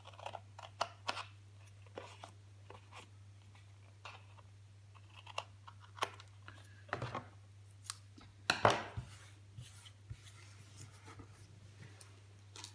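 Small scissors snipping into scored black cardstock in short, irregular cuts, with the card rustling as it is handled. One louder burst of handling noise comes about two-thirds of the way through.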